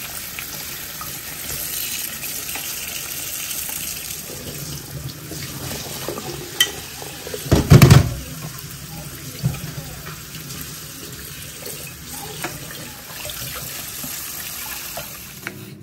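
Kitchen tap running into a stainless steel sink while imitation crab sticks are rinsed by hand, a steady rush of water, with a louder splash about halfway through and a few light knocks.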